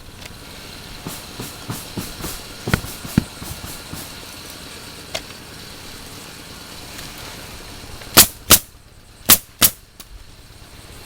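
Pneumatic roofing nail guns firing into asphalt shingles: scattered fainter shots in the first few seconds, then four loud shots in two quick pairs near the end.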